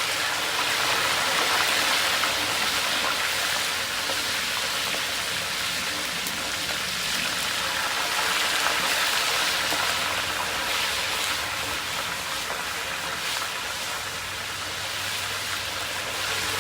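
Small whole fish deep-frying in hot oil: a steady sizzle.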